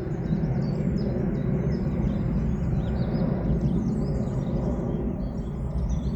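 Many small birds chirping in quick, overlapping short notes over a steady low rumble.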